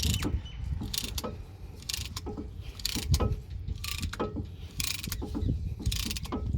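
Brake caliper piston being pushed back into its bore with a hand piston-compression tool: the tool clicks roughly once a second over a low rumble of handling.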